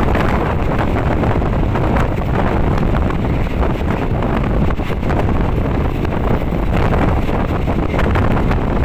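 Loud, steady wind buffeting the microphone held out of the window of a moving passenger train, with the train's running rumble underneath.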